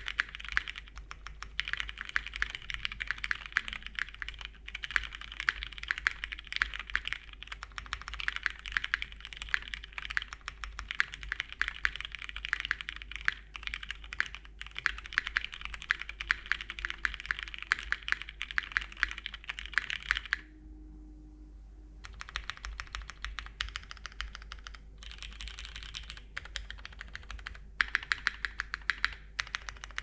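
Fast typing on a plateless Geonworks W1-AT mechanical keyboard with lubed and filmed Cherry MX Hyperglide Brown switches and CRP R4 dye-subbed PBT keycaps: a continuous run of key clacks that breaks off for about a second and a half about two-thirds of the way through.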